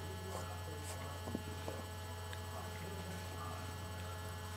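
Steady low electrical mains hum, with a few faint small ticks over it.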